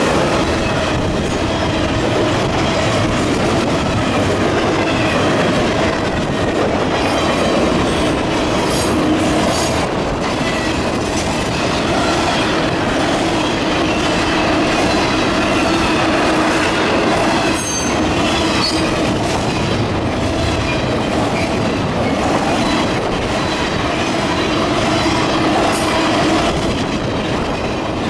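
Intermodal freight train's loaded well cars rolling past close by: a steady rumble of steel wheels on rail with rhythmic clicks over the rail joints. A few brief high-pitched wheel squeals rise above it, around a third and two-thirds of the way through.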